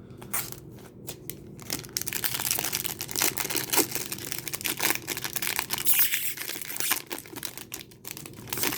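Trading-card pack wrapper being torn open and crinkled by hand. A dense crackling tear that starts about two seconds in and runs in quick irregular crackles until near the end.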